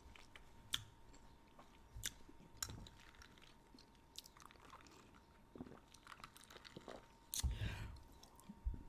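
Close-miked chewing of a shredded brisket taco: scattered soft mouth clicks and smacks, with a louder bout of chewing about seven and a half seconds in.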